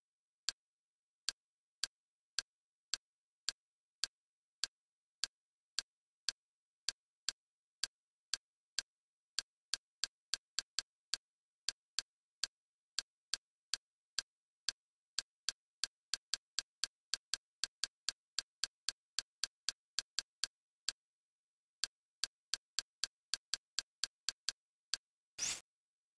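Kodi menu navigation clicks, one short click for each step of the cursor down a list. They come about two a second at first and quicker in the middle, with one longer, fuller click near the end.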